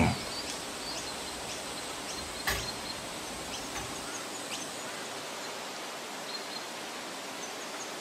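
Outdoor ambience through an open front doorway: a steady hiss with faint, scattered high chirps. A single sharp click sounds about two and a half seconds in.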